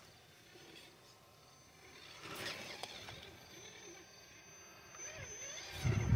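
Traxxas TRX-4 Bronco RC crawler's electric motor and geartrain whining faintly as it crawls over wet millings into mud, the pitch rising and falling with the throttle. A louder low rumble comes in near the end.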